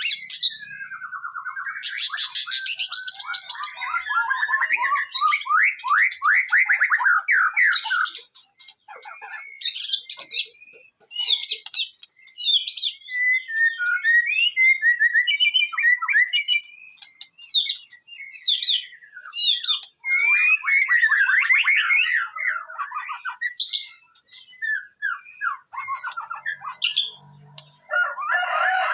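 White-rumped shama (murai batu) singing a long, varied song of loud whistles, rapid trills and gliding notes, broken by short pauses.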